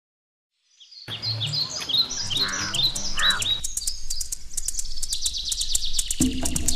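Birds chirping: after a second of silence, repeated short calls that sweep downward, then a dense run of rapid high chirps. About six seconds in, background music starts with a low steady tone under the birds.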